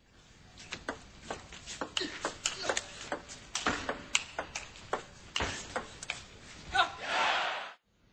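Table tennis rally: the ball clicking sharply off the bats and the table at a quick, uneven pace. A brief loud burst of voices comes near the end.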